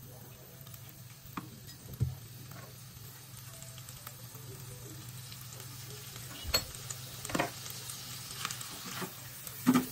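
Chicken pieces sizzling in a frying pan as a spatula stirs them, with a few sharp knocks of the spatula against the pan, the loudest near the end.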